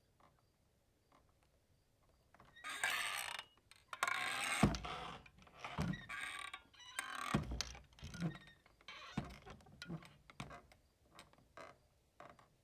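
Swinging saloon doors, their hinges creaking in long squeaks as the doors swing, with two low thuds about a third and halfway through as the doors knock. The creaks then shrink to short ticks and small knocks as the swinging settles.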